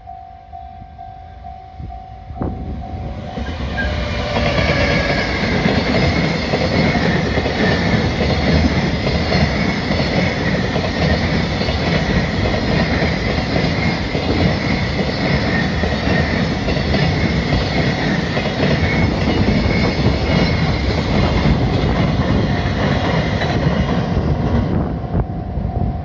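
Freight container train passing close by: a loud, steady rumble with wheels clacking over the rail joints. It builds over the first few seconds, holds as the container wagons roll past, and eases near the end.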